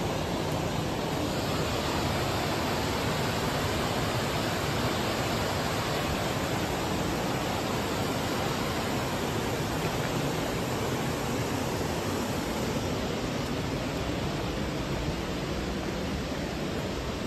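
Steady rush of river water pouring over a low weir, an even roar with no change throughout.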